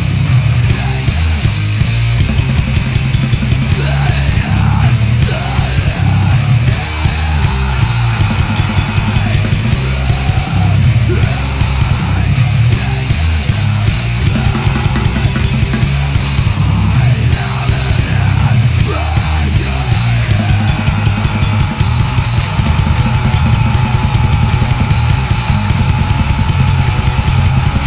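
Grindcore metal song played by a band: heavily distorted guitars and bass over fast, dense drumming. A long held note comes in about twenty seconds in and carries on.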